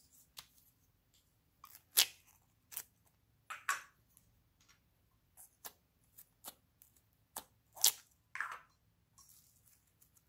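Irregular sharp clicks and crackles of small plastic slime toys being handled and opened, with brief soft squishes as pink slime is pulled out of its container; the loudest clicks come about two seconds in and again near eight seconds.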